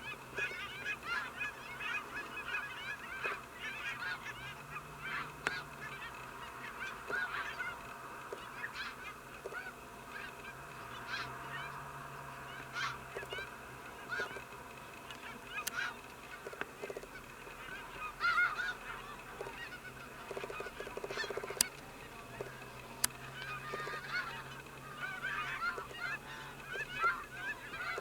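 A large mixed flock of Aleutian cackling geese and snow geese calling without pause: a dense chorus of overlapping high honks and yelps. A few sharp clicks stand out above it.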